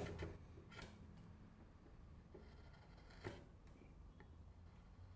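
Faint slicing of a wide shallow gouge pushed by hand through the end grain of a wedged leg tenon, paring it flush with the seat: a few short quiet cuts, the clearest a little past three seconds in.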